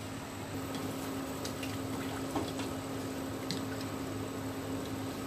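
Liquid being stirred in a stainless steel saucepan with a plastic spatula, with scattered light taps of the utensil against the pot, over the steady low hum of an induction cooktop running.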